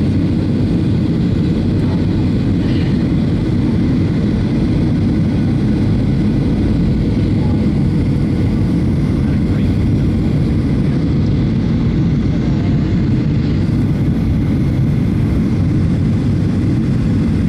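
Cabin noise of a turbofan jet airliner on descent: a steady, loud low rumble of engines and rushing air, with a faint higher tone above it.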